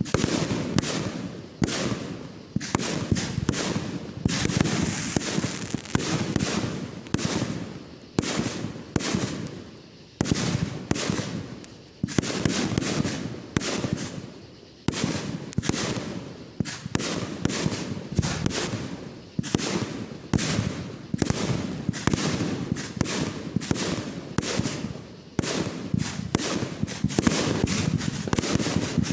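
Aerial fireworks bursting one after another, with a sharp bang every second or two, each trailing off before the next.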